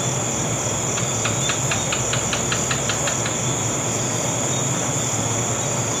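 Steady, high-pitched chirring of night insects such as crickets. About a second in, a quick run of about a dozen short chirps, roughly five a second, lasts a little over two seconds.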